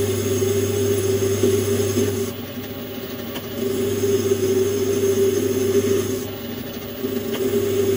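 Metal lathe running with its chuck spinning while a turning tool cuts a small metal part, peeling off chips. The sound swells in three stretches of cutting, with two short lulls about two and a half and six and a half seconds in.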